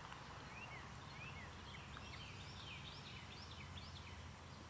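Faint birdsong: a quick run of short, sliding chirps, over a steady high-pitched background tone.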